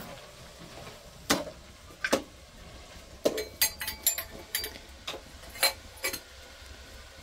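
Metal clinks and knocks from a kettle and small metal teapot being handled on a charcoal brazier while tea is made. There are about nine sharp clicks, irregularly spaced, bunched together around the middle, and some ring briefly.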